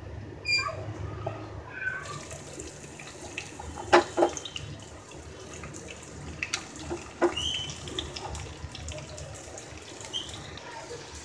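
Sliced bitter gourd frying in oil in a steel kadai, sizzling steadily, with a few sharp knocks against the pan about four and seven seconds in.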